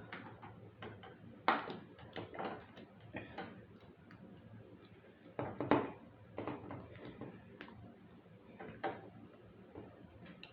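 Plastic Jurassic World Yangchuanosaurus action figure being handled and worked: irregular clicks and knocks of its plastic parts as its button is pressed and its jaw and joints move, with two louder knocks about a second and a half in and near the middle.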